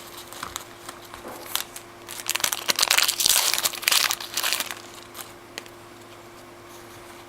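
Crinkling of a trading-card pack wrapper being opened, a dense crackly burst from about two seconds in that dies away near the middle, with scattered light clicks and rustles around it.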